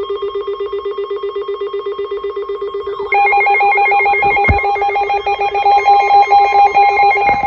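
Electronic emergency alert tones sounding ahead of a tornado warning broadcast: a fast-pulsing low beep, joined about three seconds in by a louder, higher steady tone and warbling, sweeping tones.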